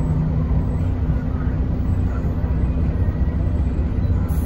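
Mercedes-Benz O405NH city bus's rear-mounted engine and drivetrain running, a steady low rumble heard from inside the passenger cabin. A low hum in the engine note fades out about half a second in.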